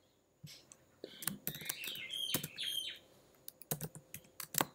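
Computer keyboard keystrokes, scattered clicks with a quick run of taps near the end, as code is typed. In the middle come a few short high chirps like a bird's.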